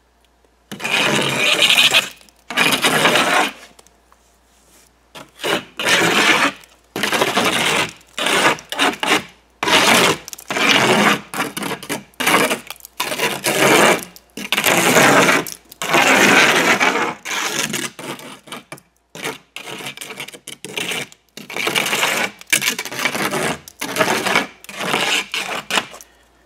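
Steel margin trowel scraping excess mortar off the faces and joints of thin brick, in a long run of quick, uneven scraping strokes with short pauses between them.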